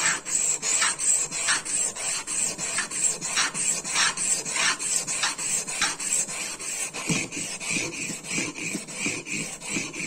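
Small Victorinox knife blade rasping back and forth across a wet 1000-grit diamond sharpening plate in steady strokes, about two a second, while the edge is being sharpened.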